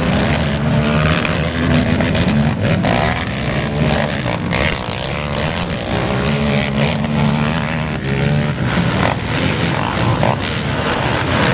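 A pack of racing ATVs (quads) running hard round a dirt track, their engines revving up and down in pitch as the riders work the throttle and shift.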